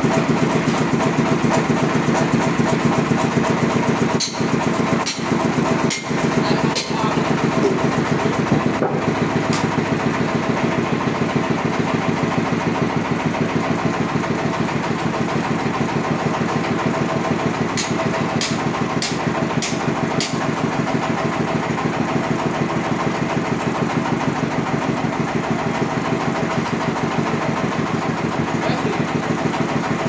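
Sawmill's engine running steadily at idle while the log is set on the carriage, with a few light clicks and a quick run of five ticks around the middle.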